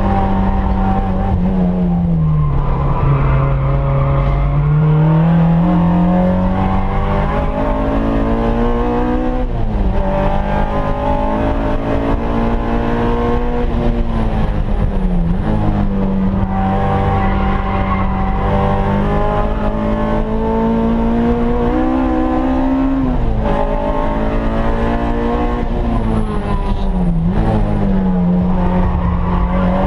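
Car engine heard from inside the cabin, its pitch climbing and falling again and again as the car drives a twisty track, with sudden drops in pitch every five to eight seconds.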